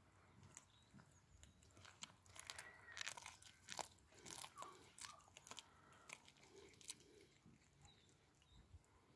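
A cat chewing and crunching a small raw fish, faint irregular crunches and bites that come thickest in the middle.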